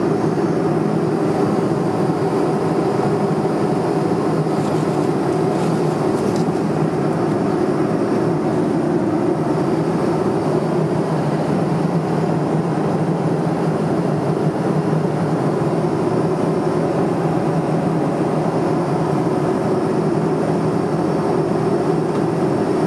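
Steady in-flight cabin noise of an airliner heard inside its lavatory: the constant low rumble and rush of the engines and airflow.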